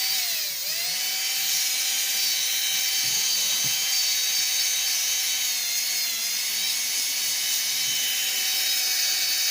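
The small brushed DC motor from a Bosch 10.8 V cordless drill-driver, freshly rebuilt, running free on a test with a steady high whine. Its pitch sags briefly about half a second in and again around six seconds, then recovers. It runs properly, with almost no shaft end play after new textolite washers were fitted.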